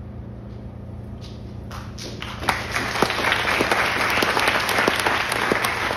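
Audience applauding: scattered claps start about two seconds in and swell into steady clapping from many hands. A steady low hum lies underneath.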